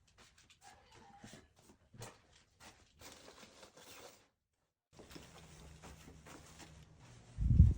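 Packing gear by hand: scattered clicks, rustles and handling noises for about four seconds. After a short break, a steady low hum runs underneath, and a loud low thump comes near the end.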